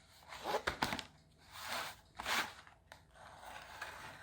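Rustling and crinkling of parcel packaging being handled, in a few short bursts with small clicks.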